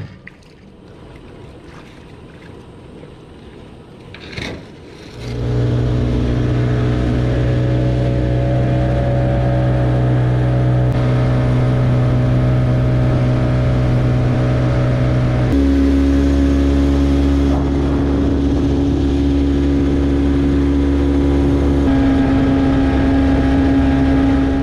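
Outboard motor of a small aluminium tinny running steadily at speed; it comes in loudly about five seconds in, after a quieter stretch, and its note jumps abruptly to a new steady pitch twice.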